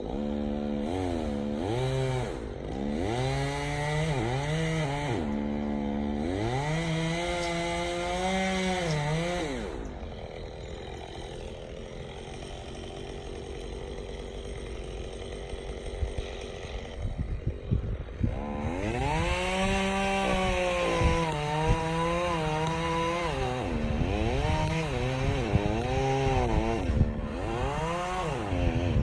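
Two-stroke chainsaw cutting burnt ponderosa pine, revving up and down in repeated bursts. About ten seconds in it drops back to a steady idle, then from about eighteen seconds it revs and cuts again.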